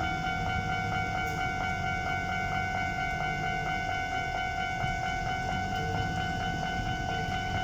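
Japanese level-crossing alarm ringing with a steady repeating electronic tone while a Keisei 3700 series electric train runs through the crossing with a low rumble.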